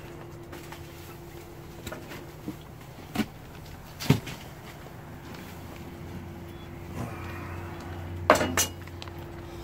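Clanks and knocks of Weber kettle grill gear being handled as the foil-wrapped pork is lifted off onto a tray: a few separate knocks, the loudest about four seconds in and a quick pair near the end, over a steady faint hum.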